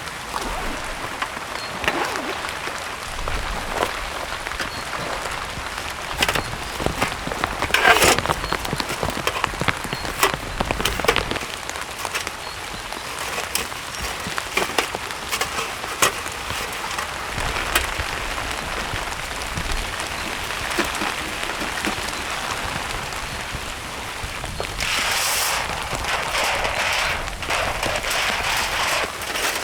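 Rain falling steadily, with many sharp ticks of individual drops striking close by. Near the end the hiss grows louder for a few seconds.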